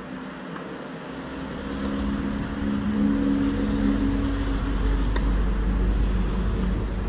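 A motor vehicle engine running, its low rumble and hum growing louder about two seconds in and then holding steady.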